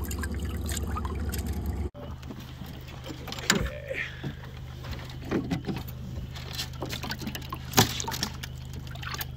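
A steady pump hum, with water spraying into a boat's livewell and walleyes splashing and knocking against its sides as they are handled. The hum cuts off abruptly about two seconds in and picks up again with a different pitch, with scattered splashes and knocks over it.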